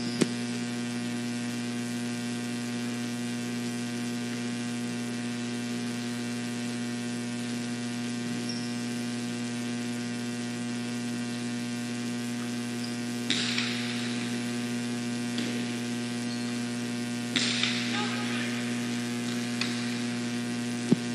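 Steady electrical mains hum on the broadcast's sound track, with two short rushes of noise about 13 and 17 seconds in.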